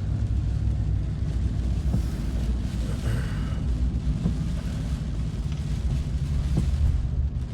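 A car driving slowly, heard from inside the cabin: a steady low rumble of engine and tyre noise.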